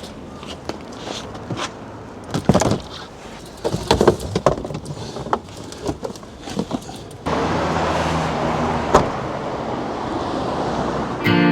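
Scattered knocks, clunks and rattles as a bicycle is loaded into the back of a car, then a steady rushing noise that starts suddenly about seven seconds in.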